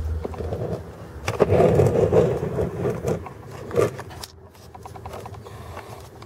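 Irregular rustling and scraping handling noise on a handheld camera's microphone as it is moved. It is loudest between about one and four seconds in, with a sharp knock near four seconds, and a low hum fades out at the very start.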